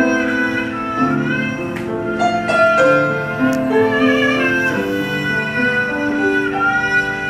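Instrumental background music: a bowed-string melody over held, sustained notes that change about once a second.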